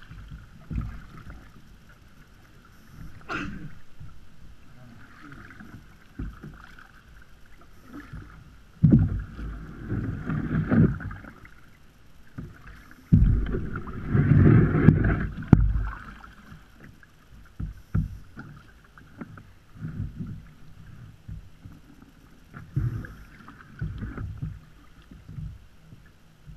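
Kayak paddling: a double-bladed paddle dipping into calm water in irregular strokes, with two louder stretches of splashing about nine and thirteen seconds in.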